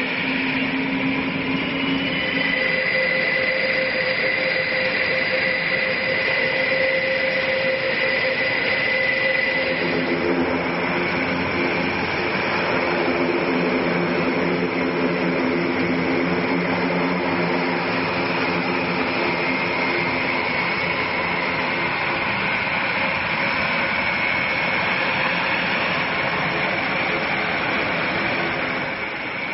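Airbus A400M's four Europrop TP400 turboprop engines running on the ground, a loud steady drone with a high whine above it. About ten seconds in, a set of lower tones joins as the aircraft comes nearer.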